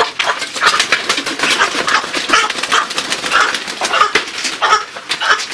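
Chicken squawking in distress and beating its wings rapidly as it is caught and held upside down by its legs.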